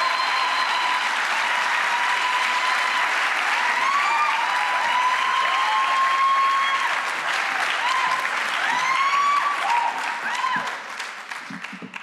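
Audience applauding steadily, with high calls and cheers rising and falling over the clapping. The applause dies away near the end.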